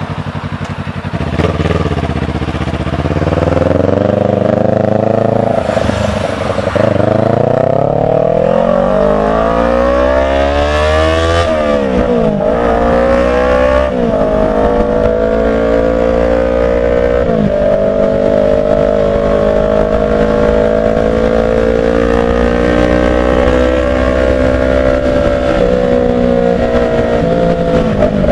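Kawasaki Ninja 400's parallel-twin engine accelerating through the gears. The revs climb for several seconds, then fall sharply at three upshifts a few seconds apart near the middle, before it settles into a steady cruise.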